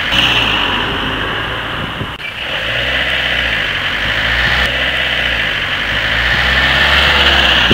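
Trains passing on a riverside railway: a steady, loud rolling rumble and rushing noise, briefly broken about two seconds in and again near the middle, where one passing train gives way to the next. In the last shot the train is hauled by a pair of red electric locomotives.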